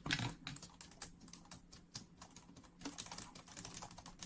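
Close-miked ASMR rustling: a dense, irregular run of crisp crackles and light taps.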